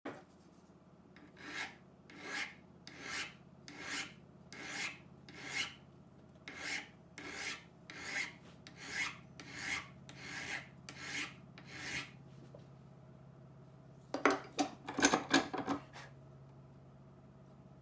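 Steady back-and-forth abrasive strokes, about fourteen of them at a little over one a second, typical of hand-filing or sanding rust off a steel edge iron. Near the end comes a short clatter of sharp metallic taps.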